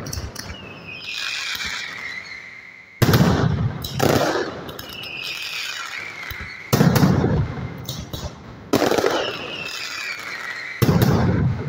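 Mascletà firecrackers and aerial bangers going off: five loud bangs about two seconds apart, each followed by a falling whistle, with smaller cracks in between.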